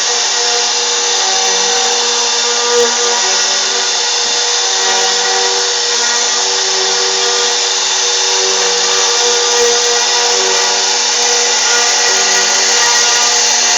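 CNC router spindle running steadily under cut, a constant high-pitched whine layered with cutting noise.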